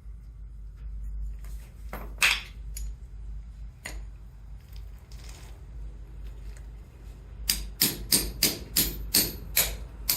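Hammer blows on a drive pin punch, driving the pin out of a number 60 steel roller chain on a metal anvil. Two single strikes come first, then a quick run of about nine blows near the end, roughly three a second.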